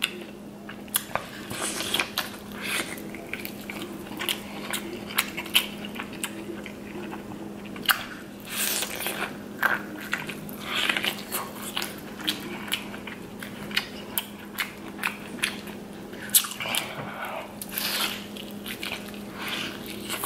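Close-miked eating: biting kernels off a sauce-dipped corn on the cob and chewing, with many short crisp clicks. A steady low hum runs underneath.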